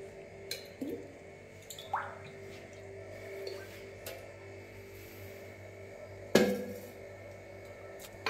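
Metal cookware being handled on a gas hob: a few light clicks and knocks, a short squeak about two seconds in, and one louder metallic clank about six seconds in, over a steady low hum.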